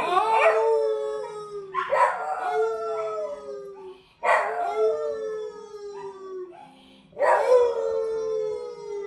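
A small dog and a man howling together: four long howls, each sliding down in pitch.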